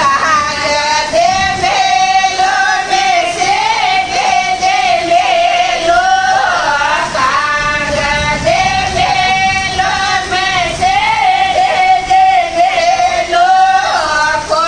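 Female voice singing a Marwari folk wedding song of the jamai sa galiyo type, a teasing song for the son-in-law, in long held, wavering high notes.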